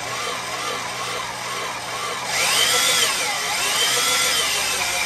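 Right-angle drill running with a large Milwaukee bit, cutting a half-inch hole through a UTV's clutch cover. About two seconds in the cutting gets louder and harsher, with a squealing whine that rises and falls in pitch as the bit bites.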